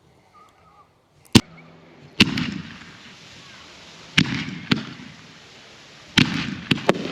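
Consumer fireworks display firing: about seven sharp bangs, the first about a second in and several close together near the end. Each bang trails off in a rolling echo.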